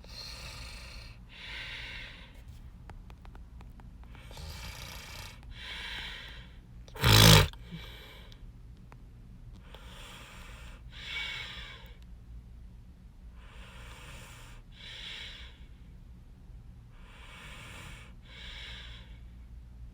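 A man breathing close to the microphone, each breath in and out drawn as a soft pair of rushes, about every four seconds. About seven seconds in there is one loud, brief noise, the loudest thing heard.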